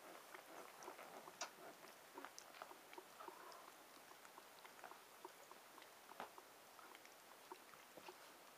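Faint wet smacking and clicking, a few times a second, of a husky mother licking her six-day-old puppy while the litter suckles.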